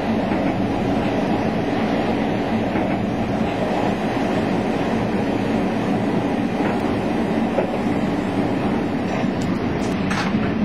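Moroccan ONCF passenger train running steadily on the rails, heard from inside the carriage: an even running noise of wheels and coach, with a few faint clicks near the end.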